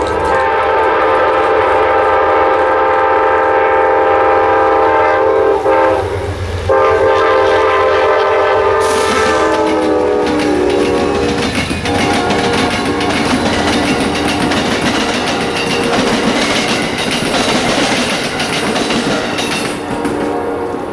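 An Amtrak locomotive's five-chime air horn sounds a long chord. It breaks off briefly about six seconds in, then sounds again, its pitch dropping as the train passes about ten seconds in. The train then runs by with wheels clattering over the rails.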